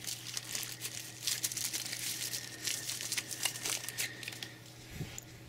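Thin plastic wrapping crinkling and rustling as it is pulled off a phone charger, stopping about four and a half seconds in. A soft knock follows near the end.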